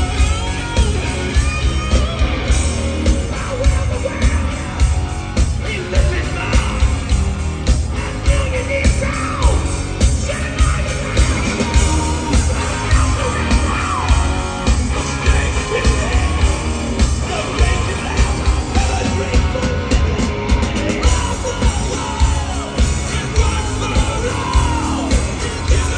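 Live hard rock band playing: electric guitars, bass and a pounding drum beat, with yelled singing over the top.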